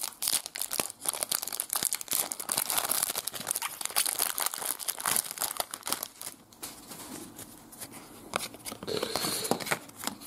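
Foil trading-card pack wrapper crinkling and tearing as it is ripped open by hand, a dense crackle that dies down about six seconds in.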